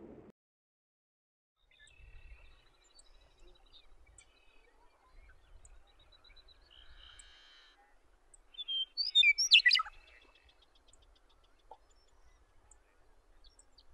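Meadowlark singing: faint scattered notes at first, then one loud, warbling song phrase about nine seconds in that tumbles down in pitch.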